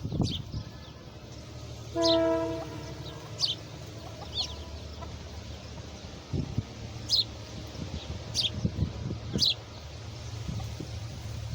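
Small birds giving short, high, falling chirps every second or so, with a brief steady honk-like call about two seconds in, over a low steady rumble.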